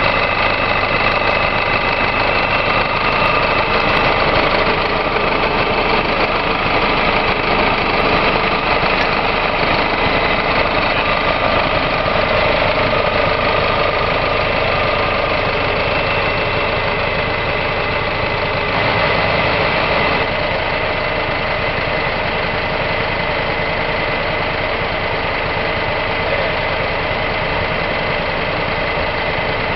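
Engine running steadily at a constant speed, with a steady high whine over it; it eases off slightly about 20 seconds in.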